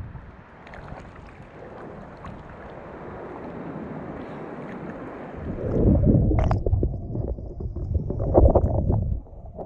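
Choppy sea water slopping and splashing around a camera held at the surface, then the camera goes under about halfway through. From there the sound turns to a louder, muffled underwater rumble of moving water and bubbles, with short knocks.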